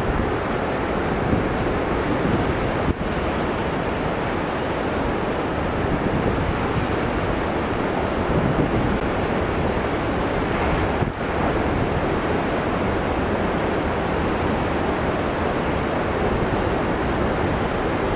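Ocean surf breaking and washing steadily, with wind noise on the microphone.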